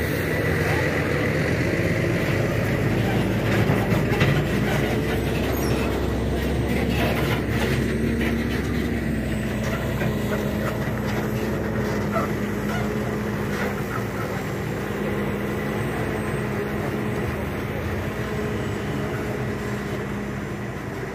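Diesel tractor-trailer hauling two grain trailers, engine running steadily under load as it drives past and pulls away up a sandy slope, with a few knocks from the rig a few seconds in. The sound slowly fades near the end as the truck moves off.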